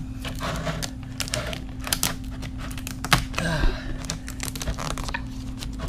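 Plastic gallon jug being handled on a concrete floor: a run of irregular light clicks and taps, with a brief crinkle of plastic about halfway through.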